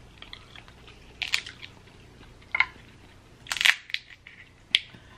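Cooked Dungeness crab leg shells cracking and snapping as they are broken apart by hand: a handful of short, sharp cracks spread over a few seconds, the loudest about three and a half seconds in.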